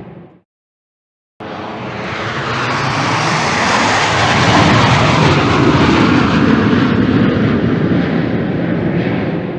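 A Canadair CT-114 Tutor jet trainer's single turbojet passing by. Its rushing roar builds, is loudest in the middle with a falling pitch sweep, and fades away near the end. Just before it, the tail of an earlier pass dies out and there is a second of silence.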